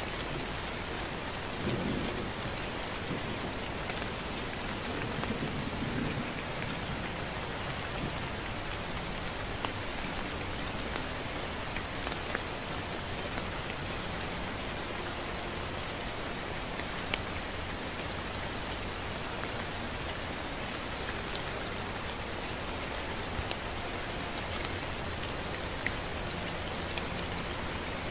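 Gentle steady rain, with scattered drops ticking close by. A low rumble of distant thunder comes about two seconds in and again around five to six seconds in.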